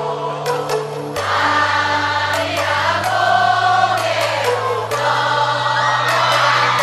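Music with a choir of sustained voices over long held bass notes that change pitch every one to two seconds.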